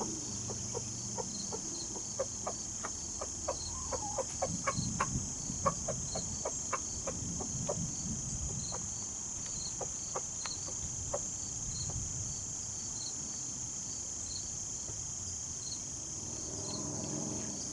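Rooster tidbitting: a run of short, sharp clucks calling his hen over to food, which die out about eleven seconds in. Crickets trill steadily behind them.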